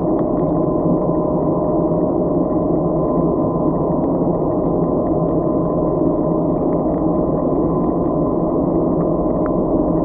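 Muffled underwater ambience heard through a camera housing: a steady, dense rumble with a faint constant hum and occasional faint ticks.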